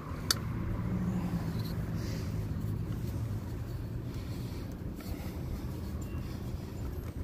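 Steady low engine rumble of a motor vehicle, strongest in the first couple of seconds. Two sharp clicks right at the start come from handling the drill's side handle.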